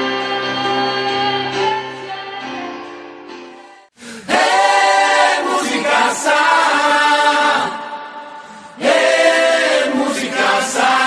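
A teenage girl singing into a microphone over a backing track, holding a last note as the song fades out. About four seconds in, loud theme music with a group of voices singing starts, dips briefly and comes back.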